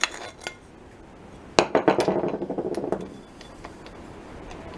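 Metal clinking and handling of an angle grinder as its grinding disc is taken off: a few light clicks, a sharp knock about a second and a half in, then a short spell of rattling clinks.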